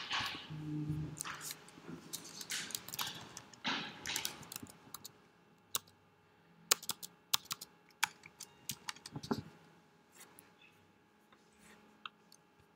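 Typing on a computer keyboard: keys clicked in irregular bursts, busiest in the middle and thinning out near the end, as terminal commands are entered.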